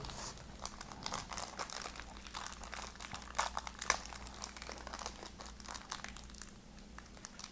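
Small plastic toy packets crinkling and crackling as they are handled and opened by hand, with many quick irregular crackles.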